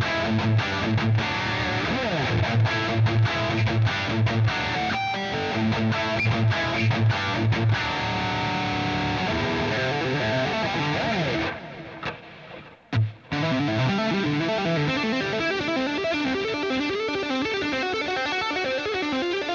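Cort X700 Duality II electric guitar with Fishman Fluence humbuckers, played with high-gain distortion. For the first several seconds it plays rhythmic low chugging riffs. After a brief break about twelve seconds in, it plays fast, evenly repeating two-handed tapped runs.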